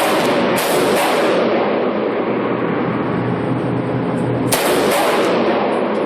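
Gunshots from a shoulder-fired long gun: two shots about four seconds apart, each with a short echoing tail, over a steady rushing background noise.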